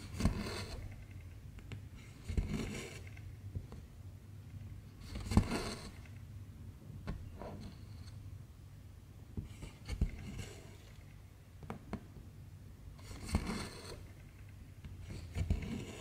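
Silk cross-stitch thread and needle being pulled through fabric: seven short scraping swishes, about one every two to three seconds, each beginning with a small click.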